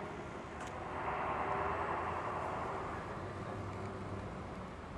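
Parkzone J-3 Cub RC plane's brushless electric motor and propeller buzzing in flight, growing louder about a second in and easing off again.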